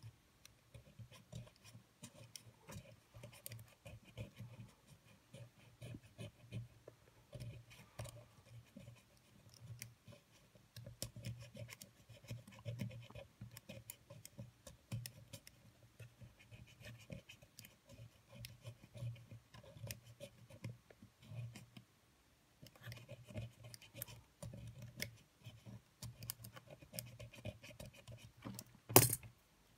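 A small metal tool scratching and ticking against the plastic and metal parts of a Sony EX999 cassette player's tape mechanism: a run of faint, irregular clicks and scrapes, with one louder knock near the end.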